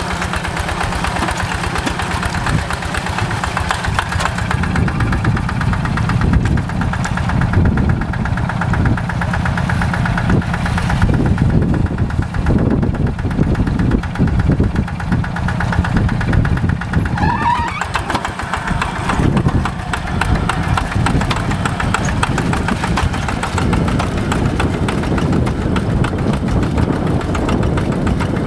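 Rice-field tractor's diesel engine running steadily, with a fast, even beat of firing strokes.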